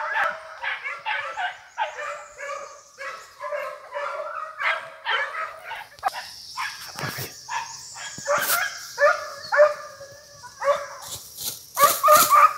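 A pack of American foxhounds baying and yelping in many overlapping cries, the hounds giving tongue as they run a paca's trail.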